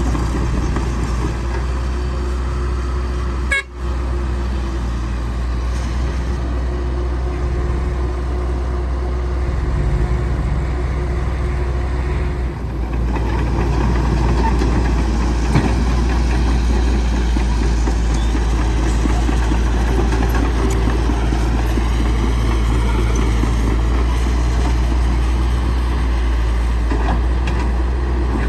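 Caterpillar 312C excavator's diesel engine running steadily under working load, with a wavering hydraulic whine that rises and falls about two-thirds of the way through. The sound drops out briefly about three and a half seconds in.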